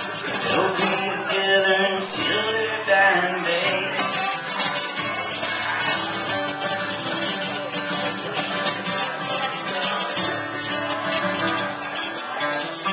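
Steel-string acoustic guitar strummed solo, playing the instrumental close of a country song.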